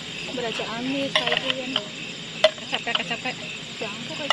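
A metal spoon stirring chunks of marinated meat in an aluminium tin, scraping and clinking against the metal sides with a few sharp clinks, the loudest about two and a half seconds in. Crickets chirp steadily behind.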